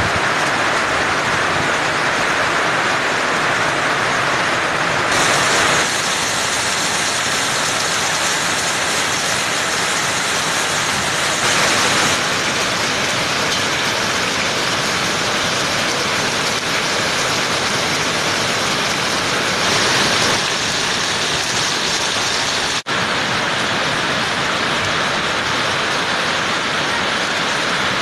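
Torrential rain pouring down in a storm with strong wind, a loud steady rush that swells a few times and cuts out for an instant about three-quarters of the way through.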